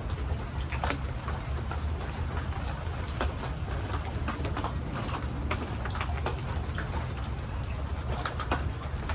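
Birds calling over a steady low rumble, with scattered short clicks.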